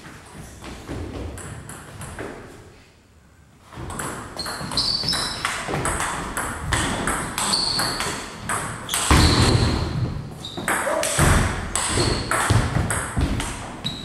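Table tennis rally: the ball clicks back and forth off bats and table at a quick, even pace, starting about four seconds in, with a few short squeaks of shoes on the wooden floor.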